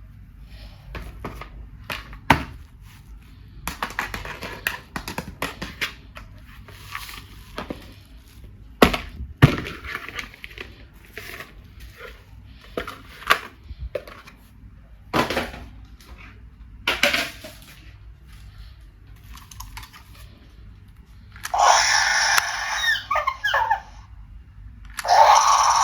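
Plastic toys and packaging being handled: scattered knocks, clicks, crackles and rustling, like plastic shells being cracked and opened. Near the end come two loud, harsh bursts, the first about two seconds long and the second about a second.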